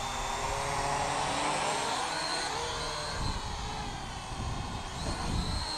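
Syma X8W quadcopter's four motors and propellers whining in flight, the pitch drifting up and down as the throttle changes.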